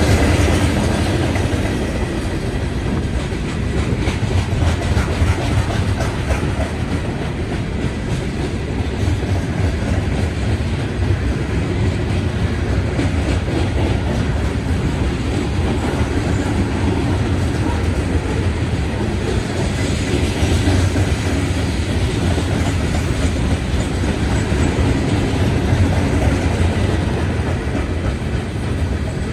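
Loaded Norfolk Southern coal hopper cars of a freight train rolling past close by: a steady, loud rumble of steel wheels on the rails that holds even throughout.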